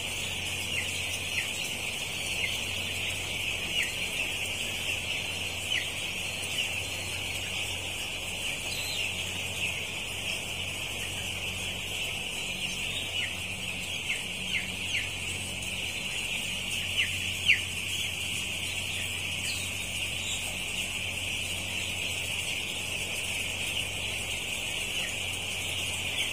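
A large flock of nine-day-old broiler chicks peeping together: a dense, continuous high-pitched chorus of overlapping cheeps, over a steady low hum.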